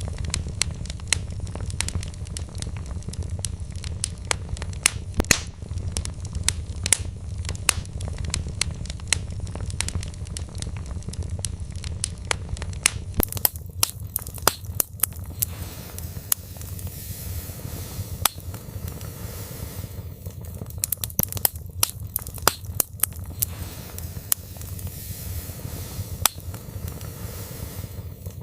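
Wood fire burning in a fireplace, crackling with frequent sharp pops over a low, steady rumble.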